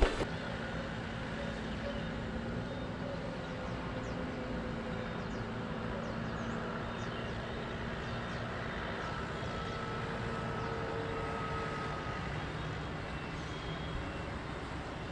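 Steady hum of distant city traffic, with a few faint high chirps here and there.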